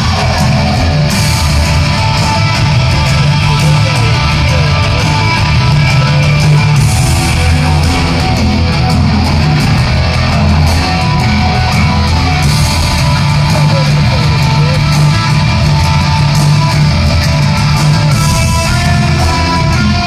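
A heavy metal band playing live in an arena, picked up by a phone in the crowd: loud electric guitar over bass and drums, continuous throughout.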